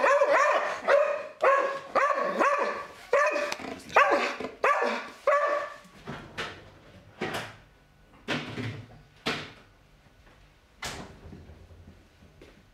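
A dog barking in rapid, high-pitched yips, about two a second, for roughly five seconds. After that comes a handful of sharp clatters about a second apart.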